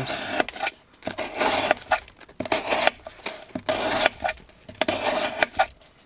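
A Ruike P127 folding knife's blade slicing through corrugated cardboard in about five rasping strokes, each under a second, with short pauses between.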